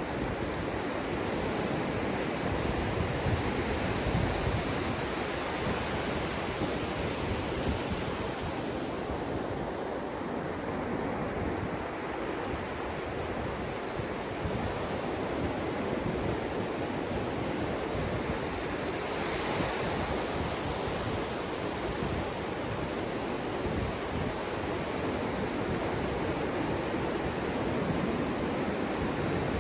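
Ocean surf breaking and washing up the sand at the water's edge, with one brighter, hissier wash about two-thirds of the way through. Low wind rumble on the microphone runs under it.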